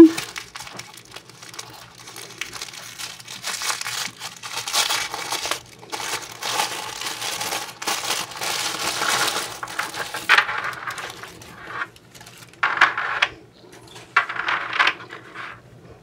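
Tissue paper crinkling and rustling as it is unwrapped by hand: near-continuous for about ten seconds, then a short pause and a few shorter rustles.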